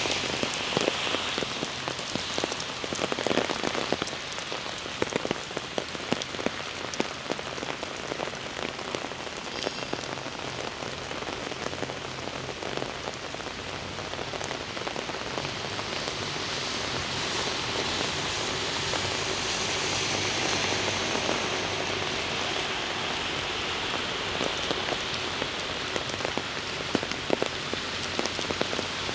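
Heavy rain falling on a city street: a steady hiss with many sharp, close drop impacts pattering through it, swelling slightly in the middle.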